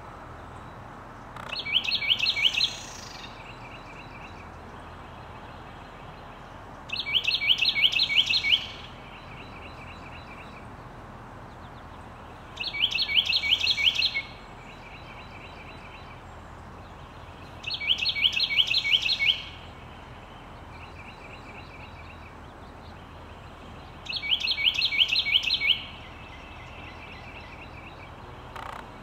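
A Carolina wren singing its loud rolling song five times, each song about a second and a half of rapidly repeated phrases, coming every five or six seconds.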